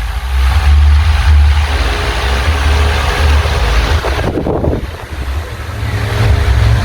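Ventisol 50 cm wall fan running, its airflow buffeting the microphone as a heavy low rumble over an even rush of air. The rumble eases briefly about five seconds in, then returns.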